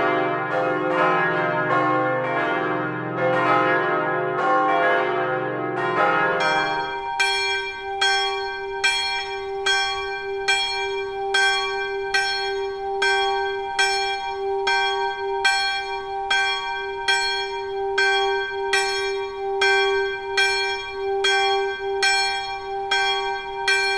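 Several church bells ringing together in a dense peal, cut off about seven seconds in. After that a single small church bell rings alone, hung in an open belfry. It sounds in an even rhythm of roughly one and a half strokes a second.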